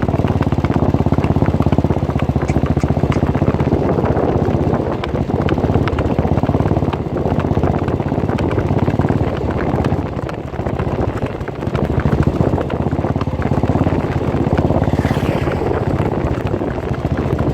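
Motorcycle engine running steadily at speed, with wind on the microphone.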